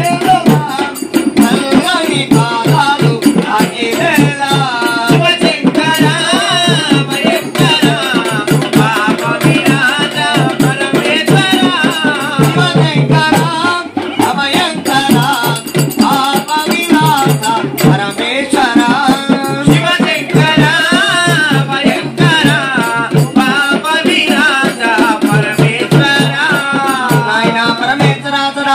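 Telangana folk devotional song: a voice singing a wavering melody over a steady pamba drum beat with jingling hand cymbals (talam).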